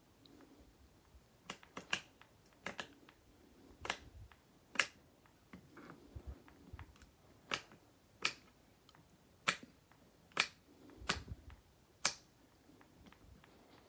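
Combination lock number wheels on a hardshell suitcase being turned by hand, clicking through their detents as a new code is dialled in: about a dozen sharp, separate clicks at an uneven pace.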